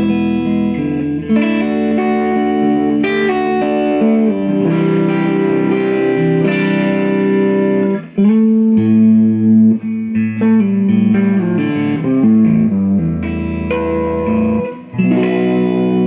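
Epiphone Dot ES-335 semi-hollow electric guitar on its neck pickup, played clean through a Fender Blues Jr. tube amplifier: ringing chords and single notes, with short breaks about halfway and near the end.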